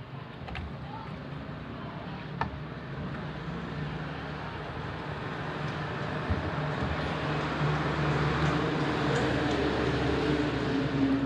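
Low engine noise of a vehicle, growing steadily louder, with a few faint clicks early on.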